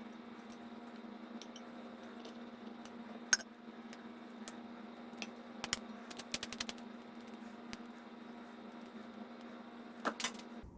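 Scattered metal clicks and clinks of an old No. 5 bench plane's parts being handled as it is taken apart: one sharp knock about three seconds in, a quick run of small clicks a couple of seconds later, and two more near the end, over a steady electrical hum.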